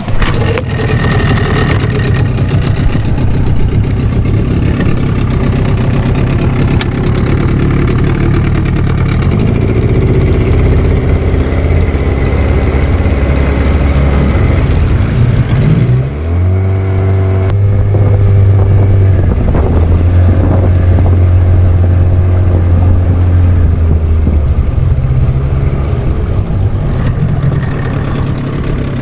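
A small boat's motor running loudly under way, its speed climbing about two-thirds of the way through and then holding steady.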